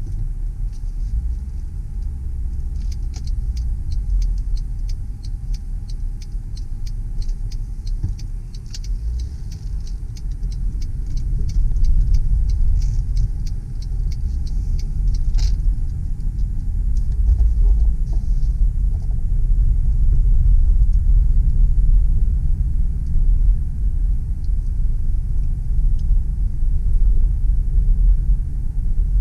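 Inside the cabin of a moving 2007 Mercedes ML320 CDI: steady low rumble of the road and its 3.0-litre V6 turbo diesel, getting louder about twelve seconds in. Faint light ticking runs through the first two-thirds.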